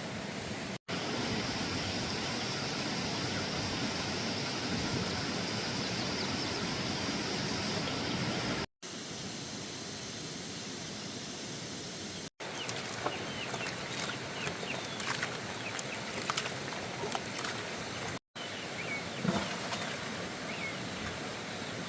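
Outdoor rural ambience in several spliced takes: a steady hiss with a high, even drone in the first take, then short bird chirps scattered over the later takes.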